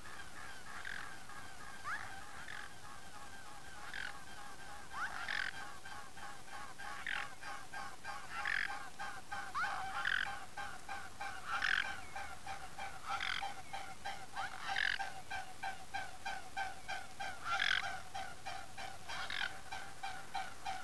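Waterfowl calling: a continuous run of rapid honking calls, with louder calls standing out about every second or two from a few seconds in.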